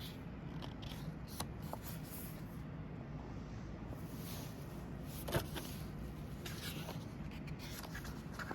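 Pages of a paper booklet being turned and handled: scattered rustles and rubs, with one sharper tap about five seconds in, over a steady low hum.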